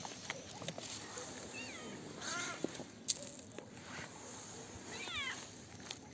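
Cats meowing: three drawn-out calls a second or two apart, with a sharp click about three seconds in.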